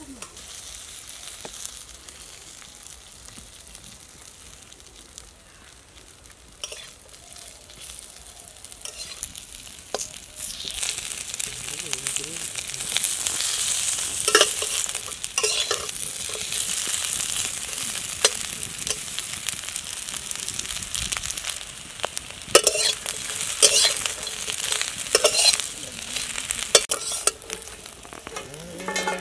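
Small fish frying in oil in a metal wok, sizzling, with a metal spatula scraping and stirring them against the pan. The sizzle grows much louder about ten seconds in, and the scraping strokes come often in the second half.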